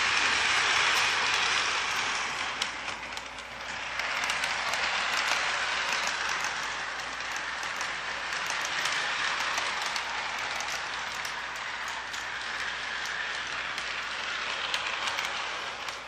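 K-Line O gauge boxcab locomotive pulling boxcars on three-rail track: the steady rolling whir of the wheels and motor, with scattered clicks as the wheels cross rail joints, fading near the end.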